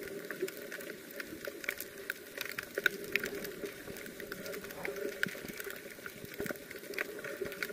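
Underwater ambience picked up by a camera in a waterproof housing: a muffled wash with many small, irregular clicks and crackles.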